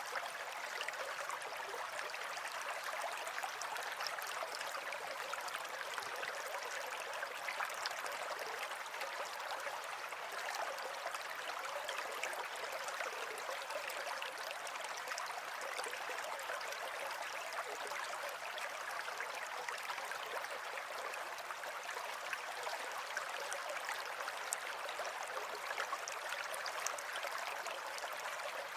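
Water flowing steadily, a continuous rushing with fine splashing detail and little low rumble.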